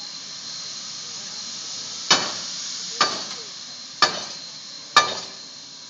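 Sierra Railway No. 3 steam locomotive moving slowly into the roundhouse: a steady hiss of steam, then about two seconds in, four sharp exhaust chuffs about a second apart, each with a short echoing tail.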